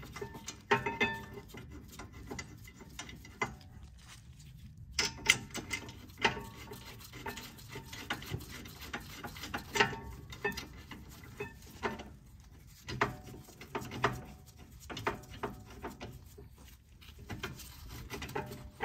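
Irregular small metallic clicks and taps as a steel brake caliper bracket is held against the knuckle and its two 18 mm bolts are fitted and threaded in by hand.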